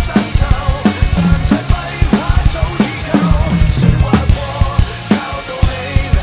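Acoustic drum kit played live in a steady groove, with kick drum, snare hits and cymbals, over backing music.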